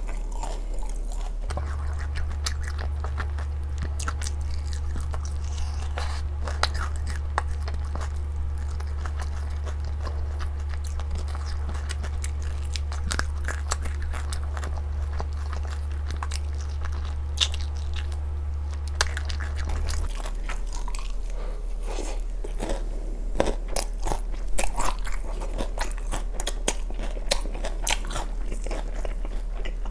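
A person biting and chewing sauced fried chicken, with many short crunches and mouth clicks, over a steady low hum.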